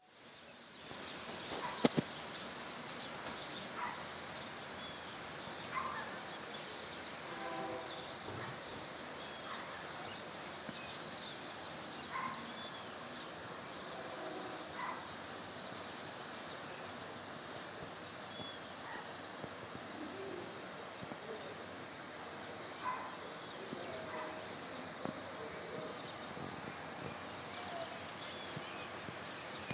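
Outdoor ambience with birds calling: a high, buzzy trill that comes back every five or six seconds, with scattered short chirps between.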